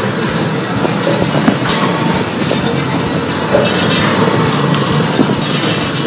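Dairy milking plant machinery running under the shed, a loud, steady mechanical noise. The farmer suspects the plant was switched on to its wash cycle instead of milking.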